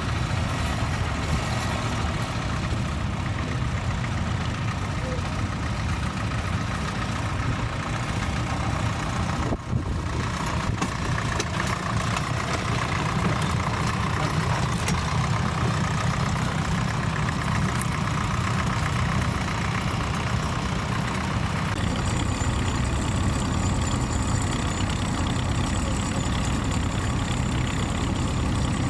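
Tractor engine running steadily, with a brief dip about ten seconds in.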